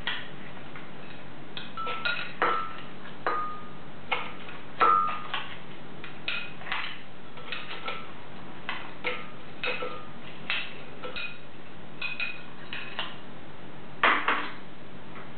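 Spoon clinking and scraping against a ceramic bowl while frozen coffee cubes are scooped out and dropped into a blender jug: irregular clinks and clatters, a few of them ringing briefly.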